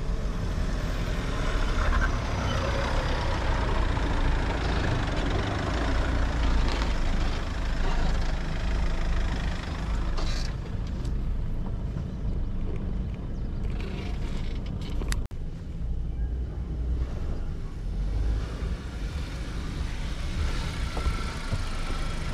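Mahindra Thar 4x4 running, a steady low rumble with a haze of road and wind noise, broken by a few short knocks about halfway through.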